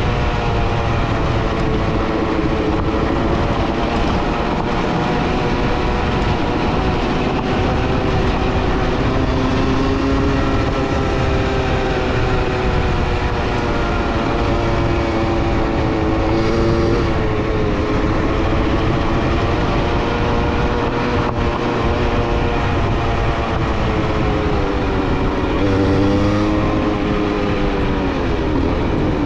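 A vehicle engine running steadily under load, its pitch slowly rising and falling, over a low rumbling drive noise.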